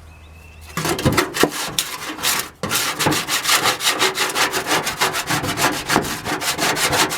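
Hand scraping of crusted rust and grease off an aluminum grill drip pan in quick back-and-forth strokes, about five a second, with a short pause partway through.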